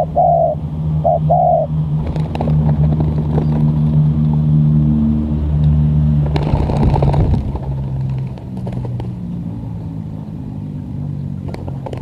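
Spotted dove (tekukur) cooing a few short notes at the start, then a motor vehicle's engine running, its pitch shifting, loudest about six to seven seconds in and easing off after that.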